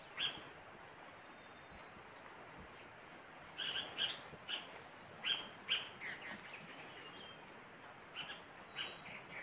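Birds chirping: short, bright calls in small clusters, with faint thin high whistles in between.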